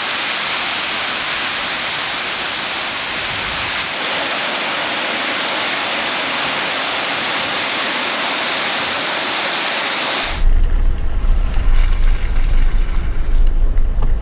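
Waterfall rushing: a steady, even roar of falling water. About ten seconds in it cuts suddenly to a loud, uneven low rumble.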